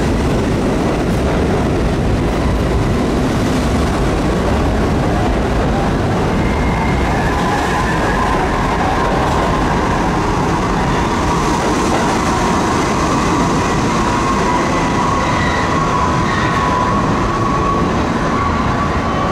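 New York City Subway R68 train running on the rails: a steady, loud rumble of wheels and track. Faint high-pitched tones come in about a third of the way through and carry on to the end.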